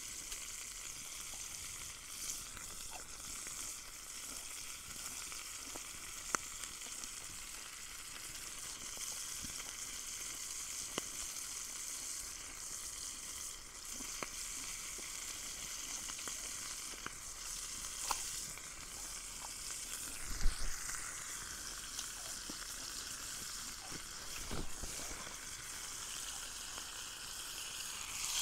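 Pork tenderloin frying in a pan, its fat rendering: a steady high sizzle with scattered pops, and a couple of low thumps, the loudest about twenty seconds in.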